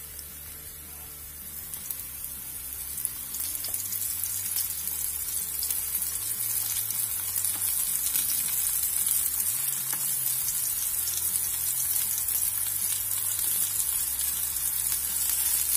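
Potato and eggplant slices frying in hot oil in a nonstick pan: a steady high sizzle with small crackles. It grows louder a few seconds in as the eggplant slices are laid in.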